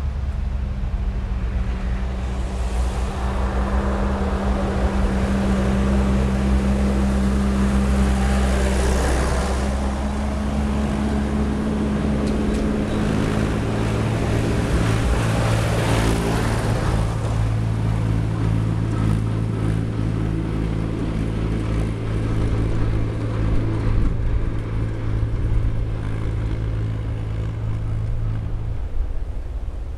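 Vintage tractor engine running steadily as the tractor comes along the lane and passes, its engine note shifting a couple of times partway through, with some wind noise.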